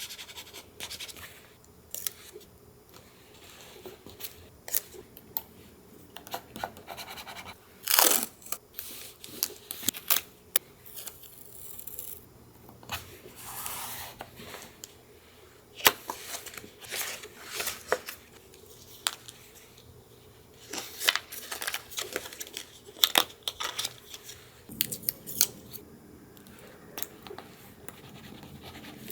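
Paper collage handling: paper rustling and tearing, with irregular small clicks and taps of tools and supplies being picked up and set down. The loudest moments are a short rip about eight seconds in and a sharp tap about halfway through.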